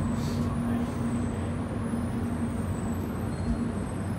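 Airport shuttle train running with a steady electric hum and a low rumble, with a brief hiss about a quarter second in.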